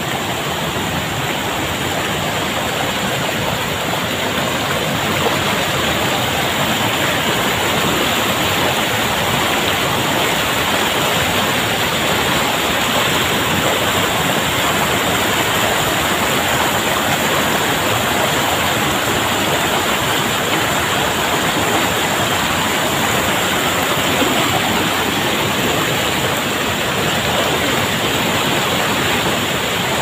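Steady rush of a small waterfall pouring into a pool, with shallow river rapids running over rocks close by.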